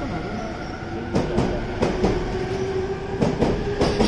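E257-series limited express train pulling out past the platform: its wheels clack over rail joints in quick pairs, over steady running noise, with a steady motor whine coming in about halfway through.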